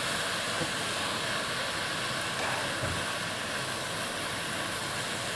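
Steady sizzle of morning glory (water spinach) and pork belly stir-frying in a hot pan.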